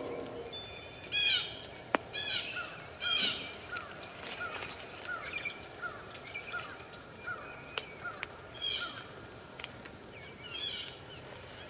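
Songbirds calling: a run of short, falling chirps about twice a second, with clusters of higher chirps over them. A couple of sharp clicks stand out, the louder one a little past the middle.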